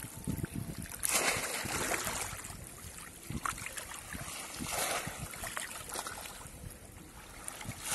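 Shallow pond water splashing and sloshing as a bamboo polo fish trap is thrust down into it and a man wades and gropes inside the trap by hand, with louder splashes about a second in and just before five seconds.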